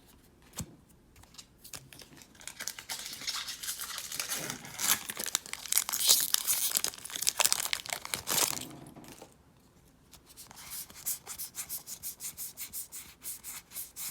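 A Magic: The Gathering booster pack wrapper being torn open and crinkled. About six seconds later, after a brief lull, comes a run of quick light clicks as the cards are handled.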